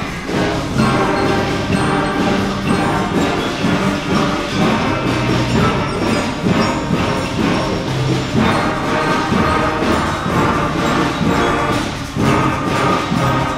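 A beginner school concert band of clarinets, saxophones, brass and percussion playing a piece together.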